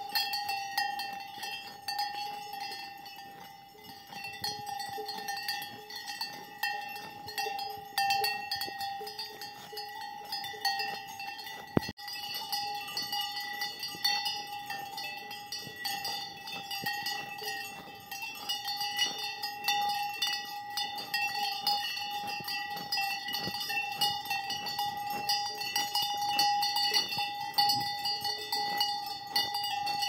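A metal cowbell on a grazing cow's collar rings steadily as the cow moves its head to crop grass, holding the same few bell tones.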